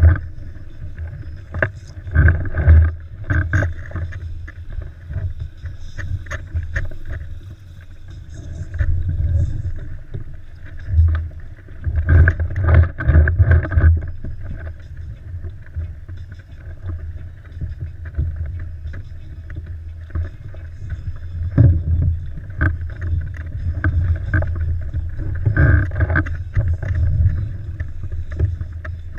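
Wind buffeting the microphone in uneven gusts, over water lapping and slapping against a plastic kayak hull on open sea.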